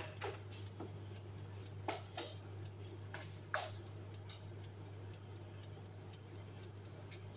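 A few light knocks and clinks of cookware being handled on a kitchen counter, over a steady low hum and faint rapid ticking.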